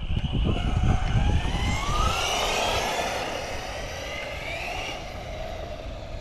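Arrma Talion 6S EXB RC car's electric motor and drivetrain whining as the car speeds up, rising in pitch twice. A low rumble runs through the first two seconds.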